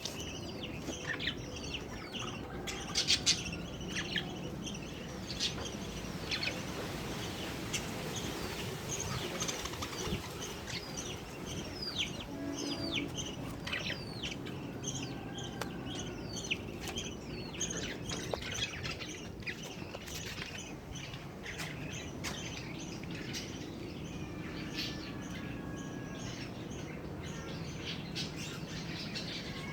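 Small bird chirping: many short, sharp chirps that drop in pitch, coming in irregular runs.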